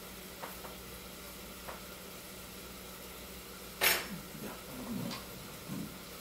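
Light clinks, then one sharp metal clank of a utensil against a pot on the stove about four seconds in, followed by softer low knocks and shuffling. A steady hum runs underneath.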